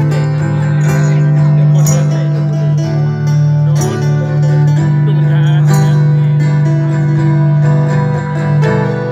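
Live band playing an instrumental passage of a Thai pop song through the stage PA, with guitar over a held bass note, heard loud from within the audience.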